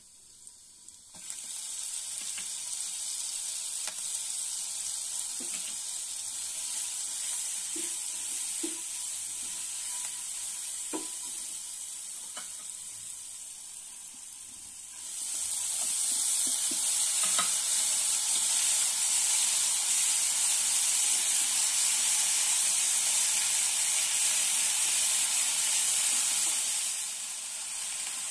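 Hot oil sizzling in a non-stick frying pan as cumin seeds and spices fry, with a few short knocks of stirring. About halfway through the sizzle grows clearly louder as chopped fresh fenugreek leaves go into the hot pan, and it drops back a little near the end.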